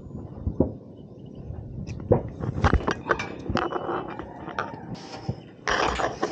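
Scattered light clicks and knocks of plastic and metal as MC4 solar-panel cable connectors are handled and pushed together, with a short rush of noise near the end.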